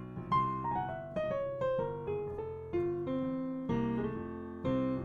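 Piano playing a jazz ii–V–I in F (Gm7–C7–Fmaj7): left-hand chords under a right-hand line drawn from the C altered scale, which runs mostly downward in single notes.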